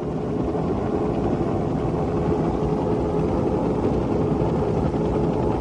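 Steady engine and cabin noise inside a moving vehicle: an even low rumble with a faint steady hum.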